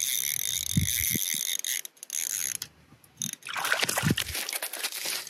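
Small spinning reel on an ice-fishing rod being cranked fast, its gears giving a steady whirring whine in two runs. Then a trout is pulled up through the ice hole, splashing and thrashing in the water.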